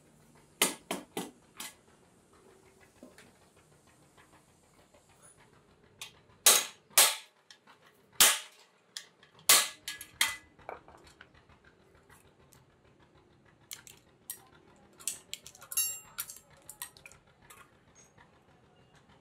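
Hammer blows on a steel punch held against a truck clutch disc on an anvil: sharp metal strikes, a quick run of four about a second in, five hard blows spread across the middle, and lighter taps near the end.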